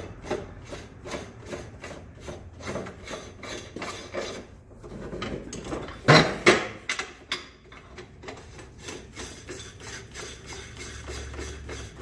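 Threaded metal cap being screwed onto a tubing anchor catcher housing, the threads scraping in short, even strokes about three times a second. Two loud metal knocks come about six seconds in.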